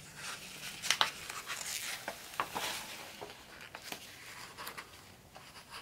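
Page of a hardcover picture book being turned: paper rustling and sliding, with a few soft taps.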